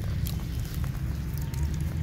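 Steady low rumble of wind on the microphone, with scattered light clicks and crackles.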